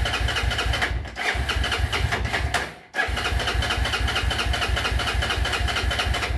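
The electric starter of a Honda 300EX quad cranks its single-cylinder four-stroke engine, turning it over in a fast, even chug that never catches. It cranks in three long runs with short breaks about a second in and about three seconds in: the engine won't start.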